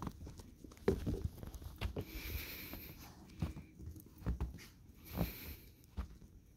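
Footsteps and dogs moving about in snow: a scattered series of soft steps and thumps, with two brief hissy rustles.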